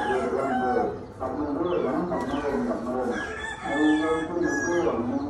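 Domestic chickens clucking and calling, several voices overlapping, with rooster-like crowing among them.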